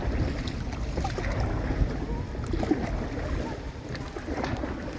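Low wind rumble on the microphone over light water sounds of a kayak being paddled, with a few soft splashes or drips near the end.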